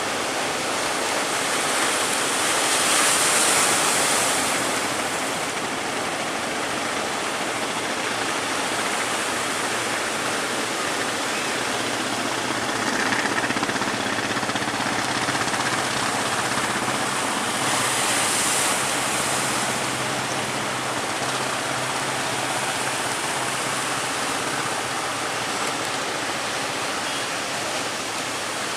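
Heavy sea surf breaking and washing, surging louder about three seconds in and again around eighteen seconds. A faint low hum from a boat's engine runs under it through the middle.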